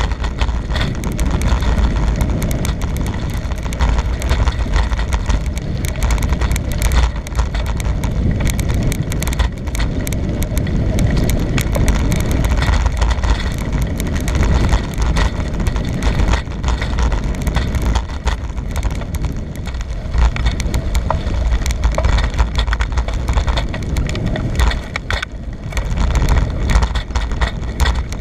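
Bicycle being ridden, heard from a camera carried on the ride: wind rushing over the microphone and a busy, irregular rattle and clatter of the bike, loud throughout.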